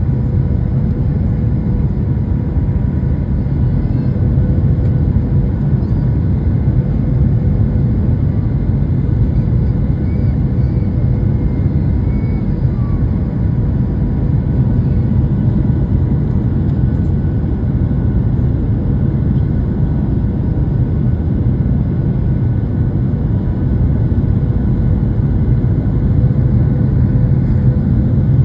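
Steady cabin noise inside a Boeing 737-900 descending on approach: a loud, even roar of its engines and the airflow, with a faint steady hum over it.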